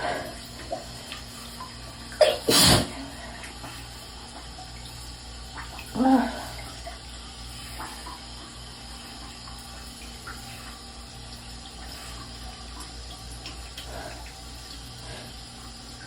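A woman sneezes once, sharply, about two seconds in, then makes a short voiced 'ah' about six seconds in. A steady hiss runs underneath.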